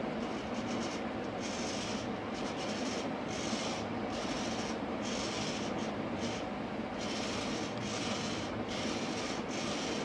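Small hobby servo motors in a robot's head buzzing in short, irregular bursts as the head turns and tilts under joystick control, over a steady background noise.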